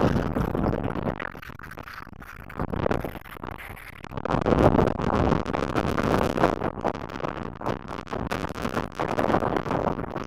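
Wind buffeting the microphone in uneven gusts, with scraping noise, louder from about four seconds in.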